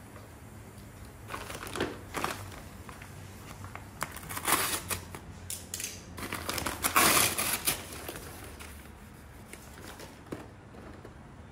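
Kraft-paper mailer bag being handled and pulled open by hand, crinkling and rustling in uneven bursts, loudest about seven seconds in.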